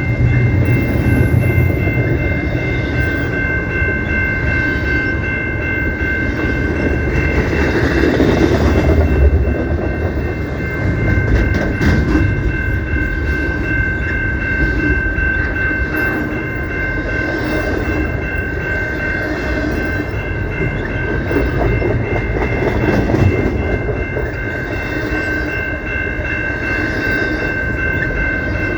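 CPKC train rolling past with a continuous rumble and rail noise. Three steady high-pitched tones sound over it and hold unbroken throughout.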